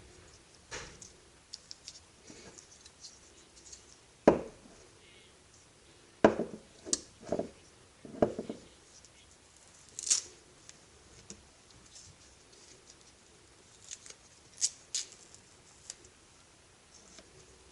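Hand work on a power-tool battery pack's plastic casing and parts: scattered clicks, taps and scratches. A sharp knock comes about four seconds in, a run of knocks between six and nine seconds, and a few high, sharp clicks later on.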